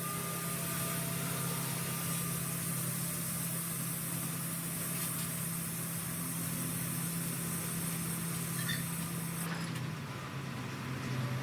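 Engine running steadily at an even speed, with a high hiss over it that stops near the end.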